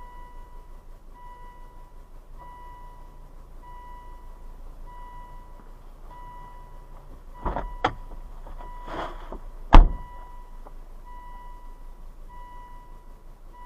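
A car's warning chime beeps steadily at one pitch, repeating about every second and a quarter. Over it come a few sharp thumps and a short rustle near the middle, the loudest thump just before ten seconds in, like a car door shutting.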